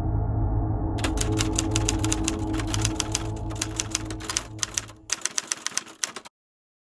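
Typewriter keys clacking in rapid, uneven strokes as text is typed out, over a low steady hum. The typing starts about a second in, and the hum fades out before everything stops abruptly about six seconds in.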